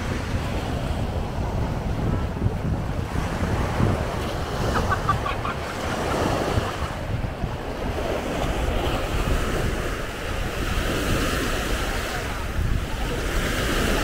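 Small sea waves breaking and washing up the sand at the shoreline, with wind buffeting the microphone as a steady low rumble.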